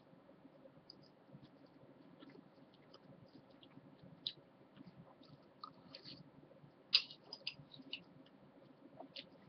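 Someone eating stewed apple with a spoon: faint, scattered clicks of the spoon against the bowl mixed with small mouth and chewing sounds. The loudest click comes about seven seconds in.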